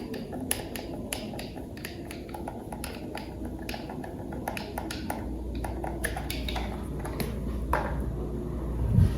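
Many small, irregular clicks and taps of plastic toy parts being handled and fitted together. A low rumble rises about five seconds in, and a single thump comes near the end.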